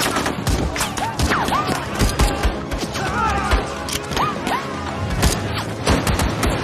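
Film battle sound effects: scattered gunshots and bullet impacts, with a few short whining glides, over background music.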